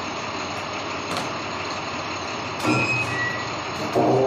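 Heavy tow truck's engine running steadily, getting louder and more strongly pitched about three seconds in and again near the end.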